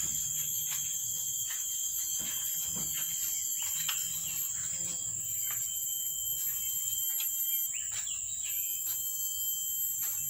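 Insects buzzing in a steady, high-pitched continuous drone, with scattered faint clicks.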